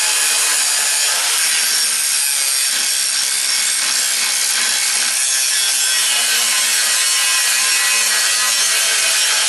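Handheld angle grinder grinding steel tubing, running steadily under load with a continuous hissing grind that never lets up.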